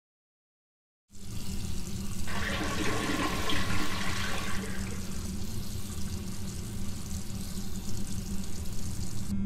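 Total silence for about a second, then a steady rushing, hissing noise starts abruptly over a low steady hum.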